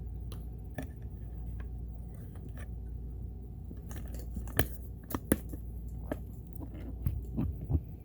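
Scattered small clicks and taps of hands handling a sewing machine and its parts, the sharpest a little past halfway and a cluster near the end, over a steady low hum.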